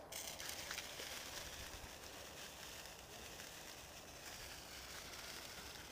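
A sparkler catching light right at the start and burning with a steady, faint fizzing hiss.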